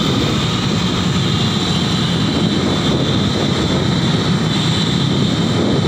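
Steady wind and road noise from a moving car in traffic, with air rushing over the microphone.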